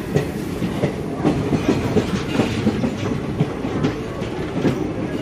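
Moving passenger train coach running over the track, heard from its open doorway: a steady rumble with wheels clattering irregularly over the rails.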